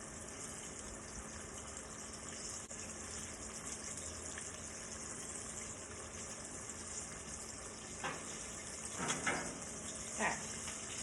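Breaded chicken breasts sizzling steadily in about an inch of hot soybean oil. A few short knocks come about eight to ten seconds in.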